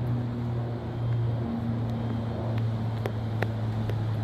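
Gusty wind and rain under a steady low mechanical hum, which dips slightly in pitch about a second and a half in, with a few sharp ticks.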